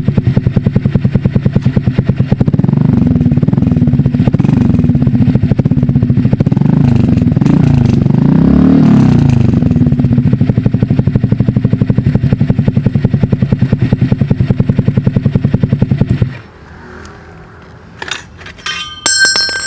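Honda Click scooter's single-cylinder four-stroke engine running through an SC Project aftermarket exhaust with a single silencer insert in the pipe. It idles with a fast, even putter and is revved up and down several times in the middle. About sixteen seconds in the engine is shut off, and a few light metallic clinks follow near the end.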